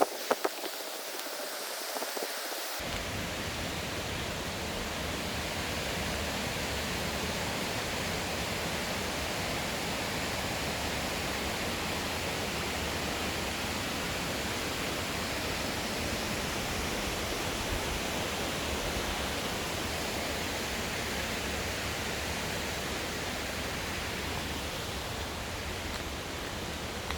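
Steady rushing of a mountain stream's falling water, an even unbroken wash of noise that turns fuller and deeper about three seconds in.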